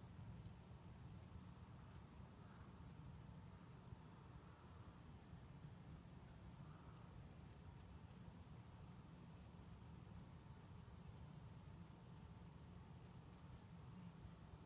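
Faint, steady high-pitched trill of night insects such as crickets, over a low steady rumble.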